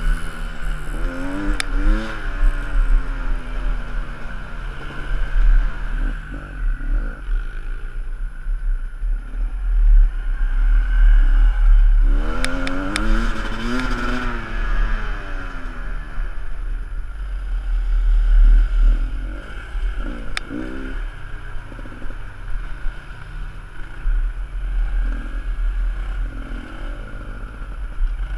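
Dirt bike engine running under the rider, revving up and easing off again and again, with the sharpest rises a second or two in, around the middle, and about two-thirds of the way through. Wind rumbles on the microphone throughout, with a few sharp clicks.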